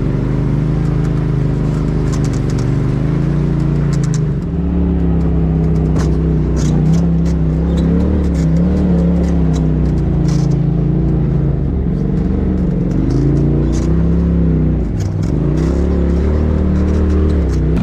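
Side-by-side UTV engine running at crawling speed on a rough trail, its pitch rising and falling with the throttle and dipping off the throttle twice in the second half. Scattered clicks and rattles over the engine sound.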